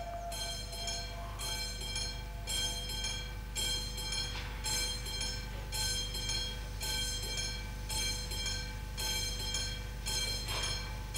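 Mountain-type (4-8-2) steam locomotive standing at a distance, with a steady rhythmic pulsing about once a second over a low rumble.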